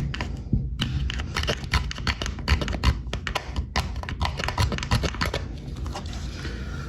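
Plastic caulk-removal tool pushed and scraped along old silicone caulk in a shower corner: a run of irregular scratchy clicks.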